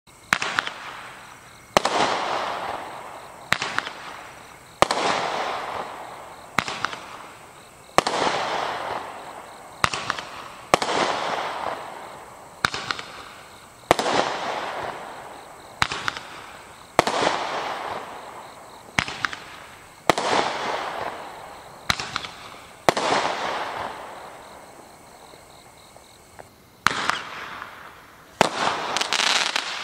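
Roman candles firing shot after shot, about one every one to two seconds. Each shot is a sharp pop followed by a fading hiss. Near the end a crackling candle fires, and its quick crackles run together.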